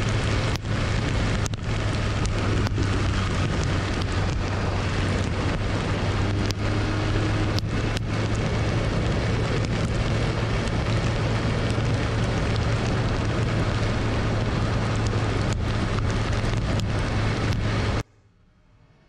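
BMW S1000RR inline-four engine running steadily at cruising speed in heavy rain, under wind rush and wet road noise, with scattered raindrops ticking on the camera. The sound cuts off suddenly near the end.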